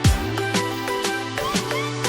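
Electronic background music with a steady beat, pitched synth notes, and deep bass hits that slide downward in pitch.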